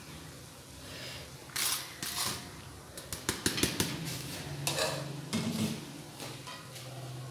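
A metal spoon scooping boiled rice from a plastic colander into an aluminium pot and spreading it, with soft scrapes and a quick run of clinks against the pot about three to four seconds in. A steady low hum runs underneath.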